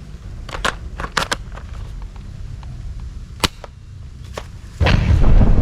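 Plastic toy guns being handled, with sharp clicks and snaps, then a loud sustained burst of toy gunfire noise starting near the end.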